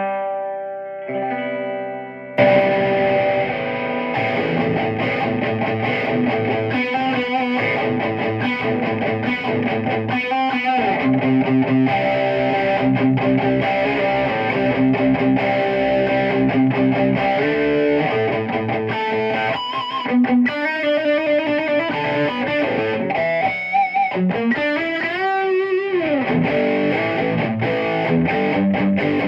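Distorted electric guitar played through a Peavey 6505+ tube combo amp fitted with an Eminence Texas Heat speaker. A chord rings out, then about two seconds in a loud riff starts, with string bends and vibrato near the end.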